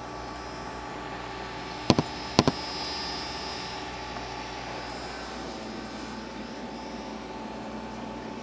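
Steady hum and hiss of running aquarium equipment, with an air bubbler stream. About two seconds in come two sharp double clicks, half a second apart.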